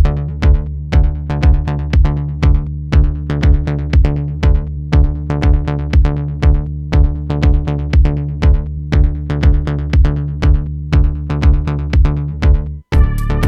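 Electronic background music with a steady drum-machine beat over sustained low notes. It cuts out for an instant near the end, then a new section with higher held tones begins.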